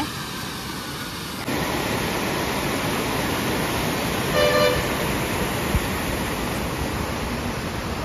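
Steady rushing of water cascading down the rocks of a waterfall, growing louder about a second and a half in. A short vehicle horn toot sounds about four and a half seconds in.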